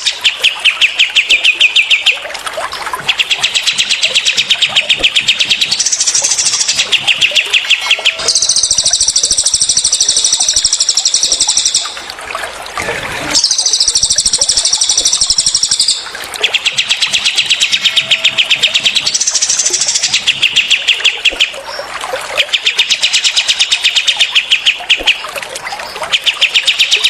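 Recorded songs of cililin and kapas tembak songbirds: repeated fast trilled bursts of about two seconds each, with two longer, higher and denser trills near the middle. A steady babble of running water sits underneath.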